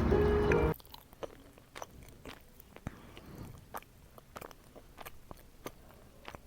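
Music cuts off under a second in. After it, a dog licking and chewing dog ice cream: quiet, irregular wet smacks and clicks of its mouth.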